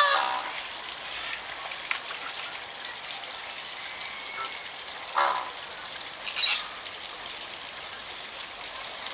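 Greater flamingos calling: a loud nasal honk right at the start and another short honk about five seconds in, with a brief higher call soon after. Underneath runs a steady hiss of water.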